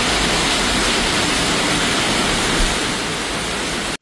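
Storm water in a heavy downpour: a loud, steady rush of rain and running water that cuts off abruptly at the end.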